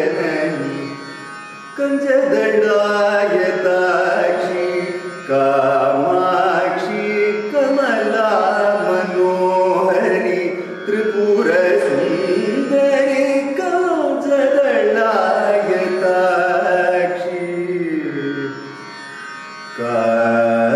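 Male Carnatic vocalist singing a slow devotional kriti with held notes and gliding ornaments between pitches. The phrases pause briefly about a second in and again near the end.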